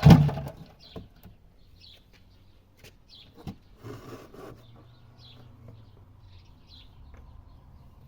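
A loud thump at the very start, then small birds chirping in short, high calls about once a second, with a brief rustle about four seconds in.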